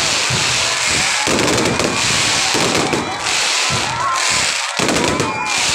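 Fireworks going off in a dense, continuous barrage of crackling and bangs, loud throughout.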